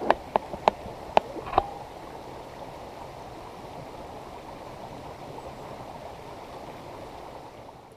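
Mountain stream running over rocks, a steady rush of water. About five sharp knocks in the first second and a half stand out as the loudest sounds.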